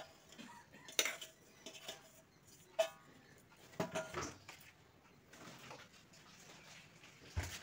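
Stainless steel bowls clinking and knocking as they are handled and set down: about five separate knocks, one near three seconds in ringing briefly.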